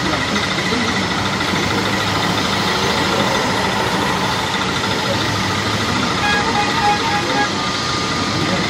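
Jet airliner engines running with a steady whine. A quick series of short horn beeps sounds about six to seven and a half seconds in.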